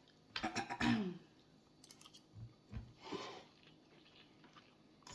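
Mouth sounds of a man eating a spoonful of rice and grilled fish: a bite taken with a short throaty sound just under a second in, then quiet chewing and a breath about three seconds in.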